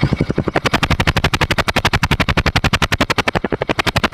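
Bajaj Discover 125's single-cylinder engine idling through a modified exhaust (Pulsar bend pipe and custom silencer), each exhaust pulse coming out as a separate sharp beat, about a dozen a second and evenly paced, giving a chopping helicopter-like sound.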